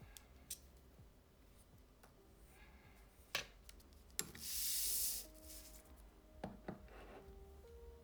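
Small hand tools clicking and scraping against the microphone's metal body as a hex screw is undone: a few sharp clicks, with a louder, mostly high-pitched noise lasting about a second just past the halfway point.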